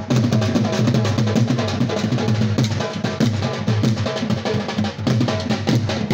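Dhol drumming: fast, steady beats on the double-headed barrel drum, with a deep booming bass head under sharp higher strokes.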